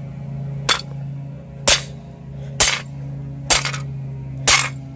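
Five sharp blows, about one a second, striking a smoke detector's casing to break a hole through it, over a steady low hum.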